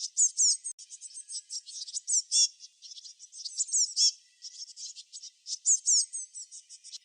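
Small songbirds chirping: a dense, unbroken run of high, quick chirps and rapid down-slurred notes, several birds calling over one another.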